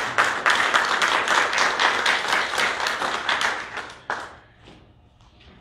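A congregation applauding. The clapping dies away about four seconds in, with one last single clap.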